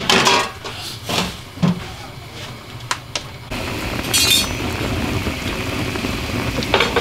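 A few light clinks and knocks, then from about halfway a steady bubbling as water boils with pig intestines in a stainless steel wok.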